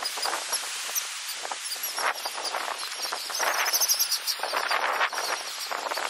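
A large flock of seagulls calling, many overlapping calls, with a run of high, rapid chirps in the middle.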